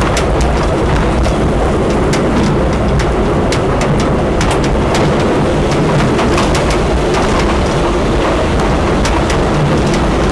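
Heritage train running along the track: a steady, loud low rumble of wheels on rail with many short, irregular clicks and knocks.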